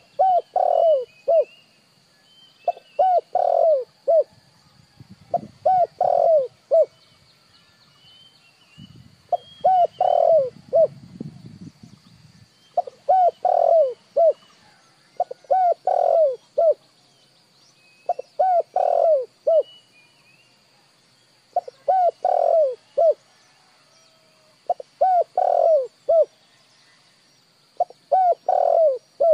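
Spotted dove cooing. It repeats a short phrase of several coos over and over, about every three seconds, which is the dove's full territorial call as used in decoy training.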